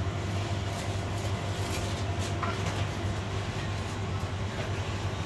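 Steady low machine hum, with a few faint clicks and a soft knock about two and a half seconds in.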